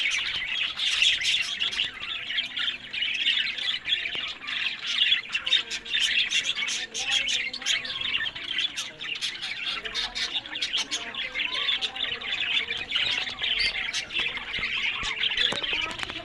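Budgerigars chattering: a dense, unbroken stream of quick high-pitched chirps, clicks and short calls.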